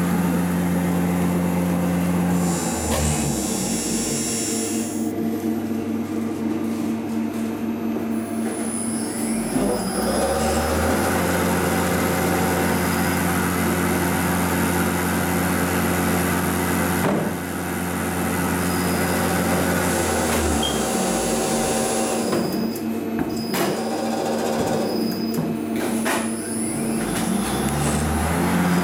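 Spindle motor on a test bench, driven by a Yaskawa CIMR-VMS27P52 spindle drive, humming steadily and changing speed several times, its pitch sliding from one steady tone to another. A high, thin whine comes and goes as it runs.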